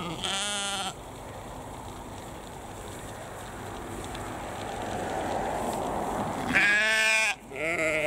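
Sheep bleating three times, once near the start and twice in quick succession near the end, each call wavering in pitch, over a steady background rush.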